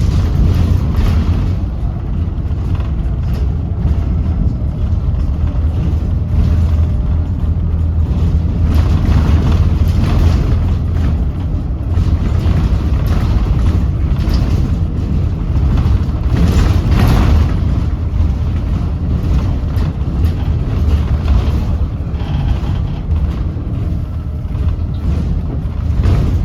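Volvo B7RLE bus with its Volvo D7E six-cylinder diesel running under way, giving a continuous heavy low rumble with road noise over it. It swells a little twice, as if under more load.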